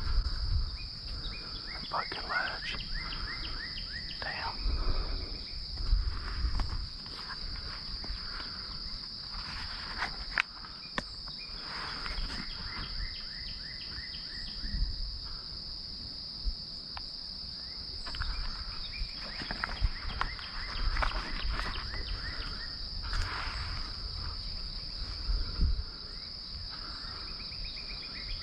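Steady high-pitched drone of a chorus of calling insects, with short chirping trills coming and going over it and occasional low rumbles of wind on the microphone.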